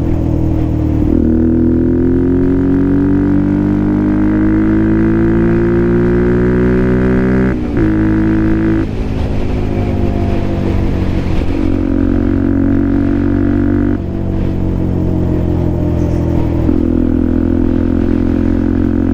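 Benelli TNT125 motorcycle's single-cylinder engine and exhaust under way: the note rises steadily in pitch for several seconds of acceleration, breaks briefly a little before the middle, then falls and runs steadier with smaller rises and dips.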